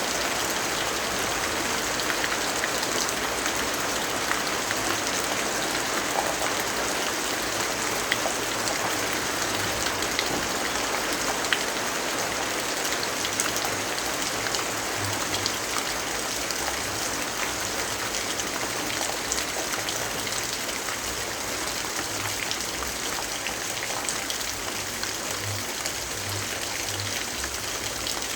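Steady rain falling, an even hiss dotted with scattered small ticks.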